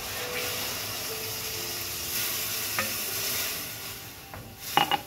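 Pasta cooking water poured into a hot pan of butter and sautéed asparagus, sizzling hard and dying down after about four seconds. A brief clatter near the end.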